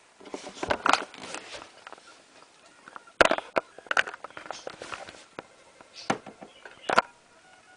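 Handling noise from the camera being moved and covered: irregular rustles and clicks, the sharpest about three seconds in and again about seven seconds in.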